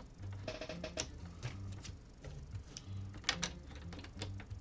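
Plastic LEGO bricks clicking and clattering as pieces are handled and pressed into place, a few irregular sharp clicks a second.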